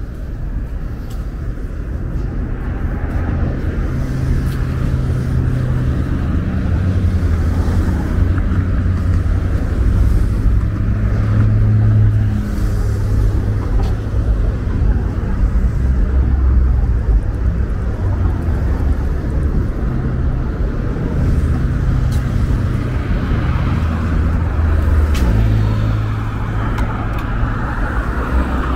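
Road traffic on a multi-lane road: a steady rumble of car engines and tyres that swells and fades as cars pass.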